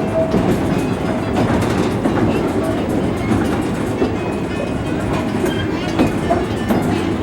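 A small tourist train running along its track, its wheels clicking over the rail joints with a steady rumble.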